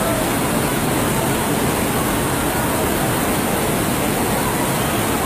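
Muddy floodwater rushing in a fast torrent along a street: a loud, steady rushing noise.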